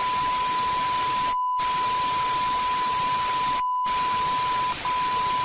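Television static hiss with a steady high test-tone beep over it. Both cut out twice for a moment, and the beep drops out briefly near the end.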